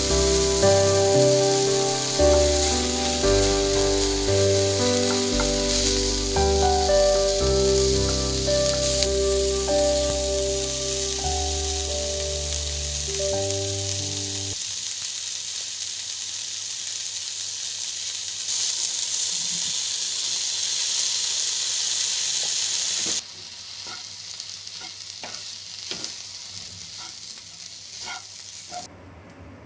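Food sizzling as it fries in a pan, a steady hiss that cuts off suddenly about three-quarters of the way through. Scattered light clicks of stirring follow. Background music with a steady bass line plays over the first half and then stops.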